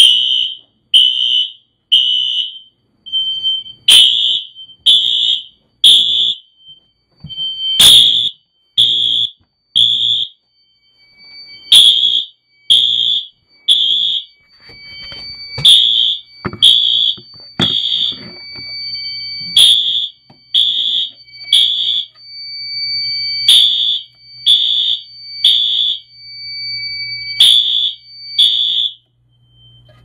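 Smoke detector sounding its alarm during a smoke test, in the temporal-three pattern: groups of three high beeps about a second apart, with a short pause between groups, stopping near the end. A fainter steady high tone runs under the beeps in the second half, with a few knocks.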